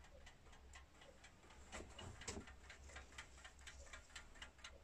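Faint, fast ticking of an antique Junghans mechanical alarm clock movement running in its case, about five ticks a second. A couple of soft knocks about two seconds in.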